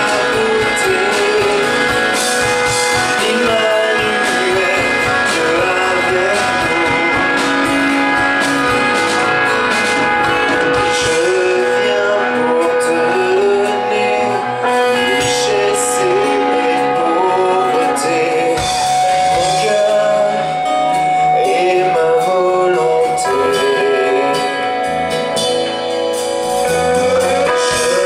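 Live rock band playing: electric guitars and a drum kit with a man singing lead vocals, heard in a large hall.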